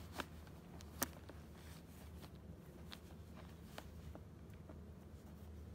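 Stirrup leather being buckled on a saddle: a few faint clicks of the metal buckle and leather, the sharpest about a second in, over a low steady hum.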